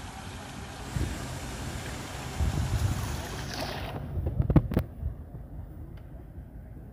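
Outdoor ambience: a steady hiss with low rumbles. About four seconds in it drops to a quieter, duller rumble, with a quick cluster of sharp clicks just after.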